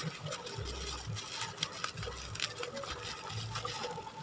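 Bubble-wrap packaging rustling and crinkling as it is handled and turned over, with small scattered crackles.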